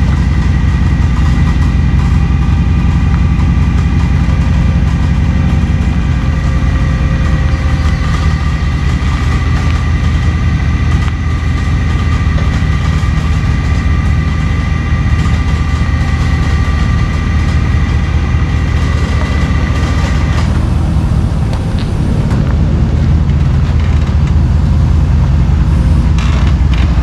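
Truck engine running steadily under load while a winch pulls a stuck van, with a steady high whine from the winch drive that cuts off suddenly about twenty seconds in.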